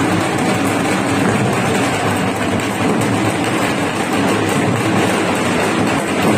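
Loud, dense din of a festival crowd with hand drums beating, heard as one continuous roar.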